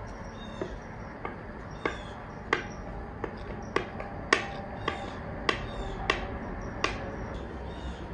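Sharp, evenly spaced taps, about one every 0.6 seconds, of a spoon knocking against a glass mixing bowl as brownie batter is worked out of it into a ceramic baking dish.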